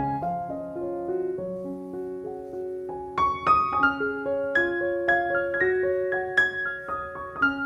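Background piano music: a slow melody of single held notes over lower sustained notes, growing busier and higher about three seconds in.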